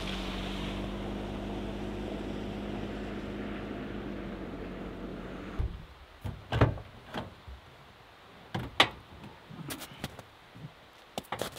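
Honda CR-V's engine running with a steady hum that stops abruptly about halfway through, followed by scattered clicks and knocks of the car door latch and door being opened.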